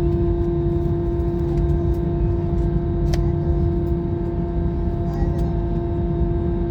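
Steady cabin noise inside an Airbus A320-200 airliner: an even, loud rumble from the engines and airflow, with a steady hum running through it.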